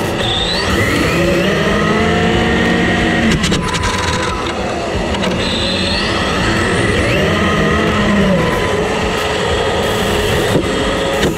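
Onboard sound of a 1/10-scale Tamiya TT-02 RC car with a 5800KV brushless motor: motor and gear whine rising and falling in pitch twice as the car speeds up and slows down, over a steady low rushing noise.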